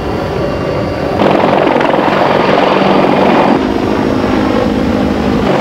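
H-53-series heavy helicopter running, a steady dense rotor and engine noise that gets louder about a second in.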